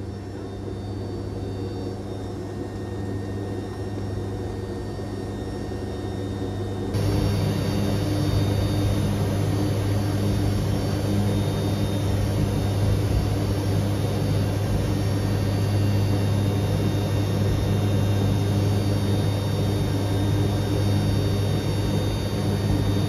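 Lockheed C-130J's Rolls-Royce AE 2100 turboprop engines and six-blade propellers running, heard from inside the aircraft: a steady low drone with a strong hum. It becomes louder about seven seconds in.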